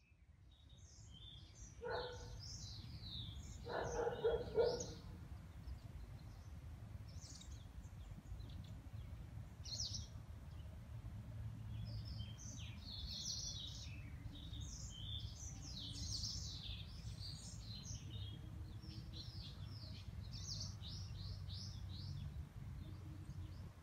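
Small birds chirping and twittering over and over above a low steady rumble, with two short lower-pitched calls about two and four seconds in.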